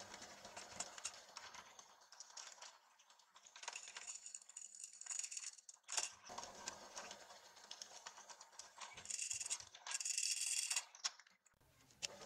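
Small metal clicks and rattles as a steel cleaver blade and a C-clamp are handled and set on a cast-iron drill press table, with a louder stretch of high scraping from about nine to eleven seconds in.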